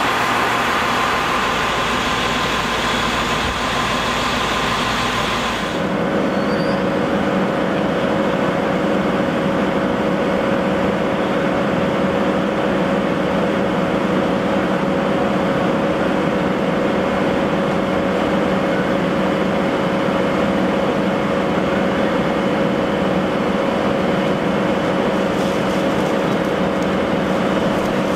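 Krupp M1500B diesel-hydraulic locomotive's engine running steadily, a constant multi-tone drone. It follows about six seconds of a different rail vehicle's running noise.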